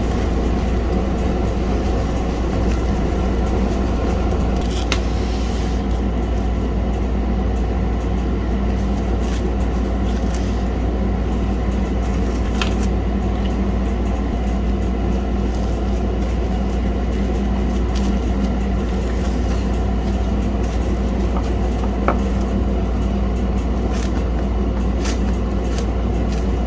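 A steady, even mechanical drone with a low hum underneath, joined by a few short light clicks, mostly near the end.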